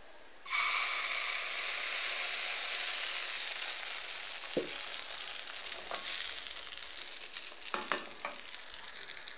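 Mkhanfar batter sizzling as it hits hot oil in a small frying pan. The sizzle starts suddenly about half a second in and slowly dies down, with a few scattered pops and clicks in the second half.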